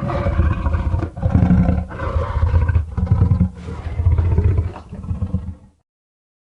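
Gorosaurus roar sound effect: a low, growling monster roar in about six pulses, cutting off abruptly a little before the six-second mark.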